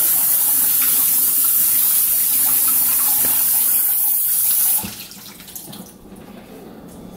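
Kitchen faucet running steadily into the sink as strawberries are rinsed under it, shut off about five seconds in; a few faint knocks at the sink follow.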